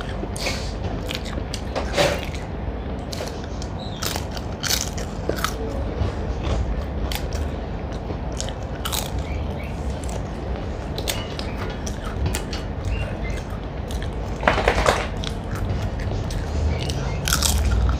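Close-up eating sounds: chewing and mouth noises with scattered crunchy clicks, and a louder cluster of crunching about fifteen seconds in.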